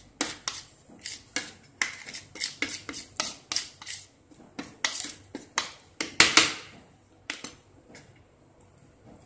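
Steel spoon scraping and stirring thick spice paste on a plastic plate in quick repeated strokes, about two a second. The strokes are loudest a little past the middle and end with a single tap about two seconds before the end.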